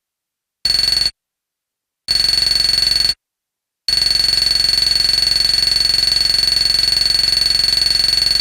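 Synthesized sci-fi data-transmission beeps: a high electronic tone with a fast flutter, keyed on and off. A short beep about half a second in, a beep of about a second around two seconds in, then one long unbroken tone from about four seconds in.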